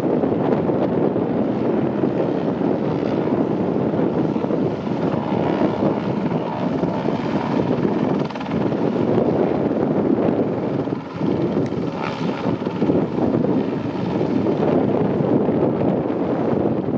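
Airbus AS350 Squirrel helicopter flying low and drawing closer, its main rotor and turbine engine making a loud, steady whirring noise.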